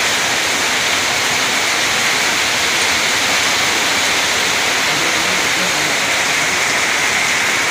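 Heavy rain pouring down steadily, with runoff streaming off a roof edge and splashing: a loud, even rush of water.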